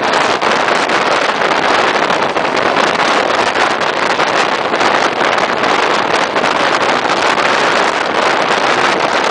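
Steady rush of wind on a microphone held out of the window of a moving regional train, mixed with the train's running noise.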